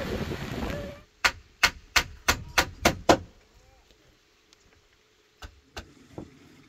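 Wind noise that cuts off suddenly, then seven sharp knocks in quick succession, about three a second; three fainter knocks follow near the end.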